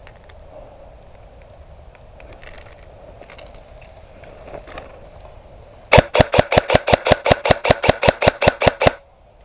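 Airsoft electric M4 rifle firing a fast string of about twenty shots, roughly seven a second, close to the microphone, starting about six seconds in and stopping abruptly after about three seconds.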